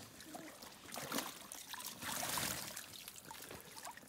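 Pool water splashing and trickling as a wet Lagotto Romagnolo paddles and hauls herself out of a swimming pool, with a louder stretch of splashing about two seconds in.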